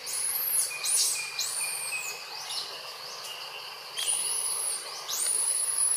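Infant long-tailed macaque crying: a series of shrill, high-pitched squeals, some short and arching and two longer, level ones in the second half.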